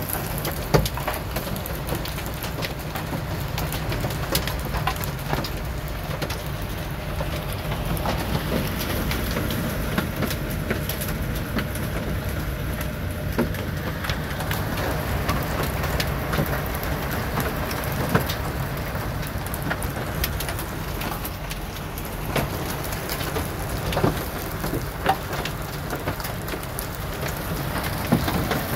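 Rain and hail pelting a semi-truck cab's windshield and roof, heard from inside the cab: a steady wash of rain with many scattered sharp hits.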